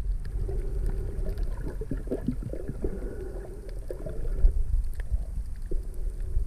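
Muffled underwater sound picked up by a camera held below the surface: a continuous low rumble of moving water, with scattered faint clicks and crackles.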